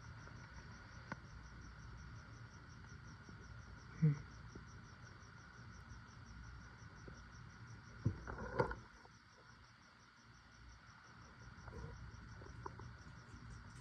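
Cricket chirping steadily and faintly, about four high chirps a second. A brief low vocal sound about four seconds in, and a few quick knocks around eight seconds in.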